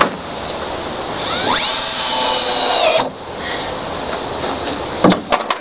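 Cordless drill driving a screw into a wooden deck spindle: the motor whine rises, holds for about a second and a half, then cuts off. A few sharp knocks follow near the end, over a steady rushing background.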